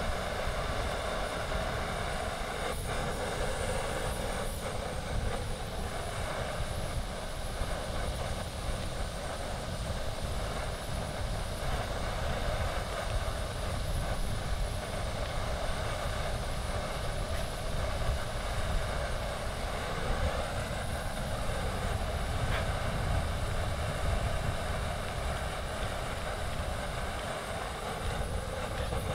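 Steady wind: an uneven low rumble on the microphone under a rushing hiss.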